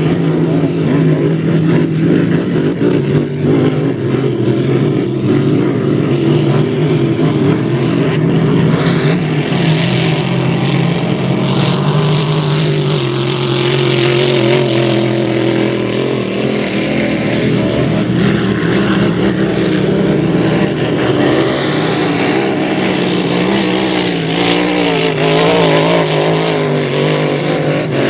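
Grand Prix racing hydroplanes' engines running at speed around the course: a loud, steady engine drone whose tones shift as the boats pass, with more high rushing noise from about eight seconds in.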